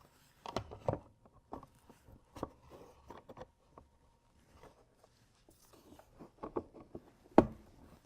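Hobie H-Crate wall panels being pressed into the slots of its aluminium H-rail frame: scattered light clicks and knocks of handling, with one sharper knock near the end.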